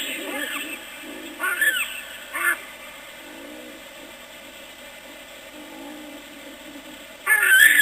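Odd, scary-sounding animal calls at night: harsh calls that rise and fall in pitch, two about one and a half and two and a half seconds in, then a quieter stretch of faint lower calls, and a loud cluster of calls near the end.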